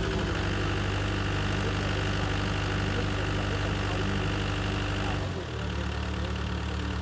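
Kobelco excavator's diesel engine running steadily, its note changing abruptly about five seconds in.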